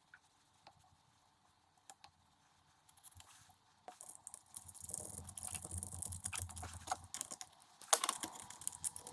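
Tools and small parts being handled while working on a chainsaw's fuel line: scattered light clicks and rattles, denser and with rustling from about halfway, and a sharp click near the end.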